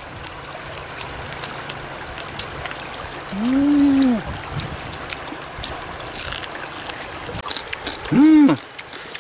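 Steady rush of a nearby stream, with two short wordless vocal sounds from a person eating, each rising and then falling in pitch, one a few seconds in and one near the end, and a few light clicks.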